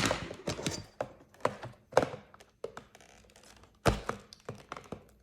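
Scattered knocks, taps and clicks of fidget toys and their packaging being handled and set down on a tabletop, with a sharper thunk about four seconds in.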